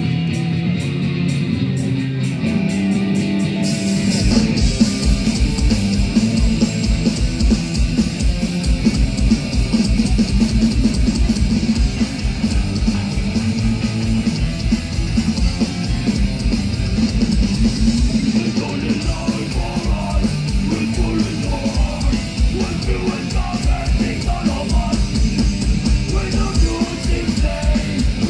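Live rock band with distorted electric guitar playing an intro. About four seconds in, drums with cymbals and the full band come in on a steady driving beat.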